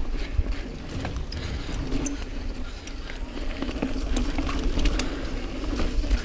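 Niner EMD 9 hardtail mountain bike ridden over dirt singletrack: steady tyre rumble and wind noise with frequent rattles and clicks from the bike over the bumps, heard from the rider's action camera.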